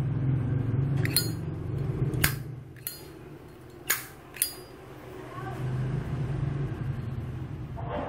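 Several sharp metallic clicks and clinks as a brass Zippo lighter is handled in the hand, the two loudest close together about four seconds in.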